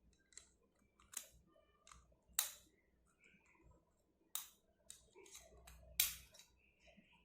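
Small hard parts of a mobile phone charger being handled, giving scattered sharp clicks and taps, four of them louder and spaced one to two seconds apart.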